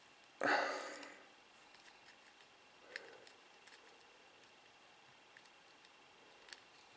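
Faint small clicks and ticks of fiddly handling, fingers working small drone parts and wires, with one brief louder noise about half a second in that fades quickly.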